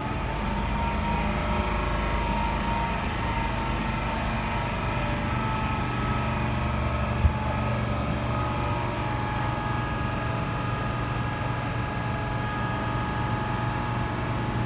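Steady drone of machinery in an underground metro station: a low hum with several thin whining tones held level above it, and one short knock about seven seconds in.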